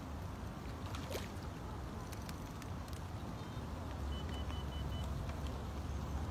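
Steady low rumble with hiss above it, and a row of four short electronic beeps a little after four seconds in.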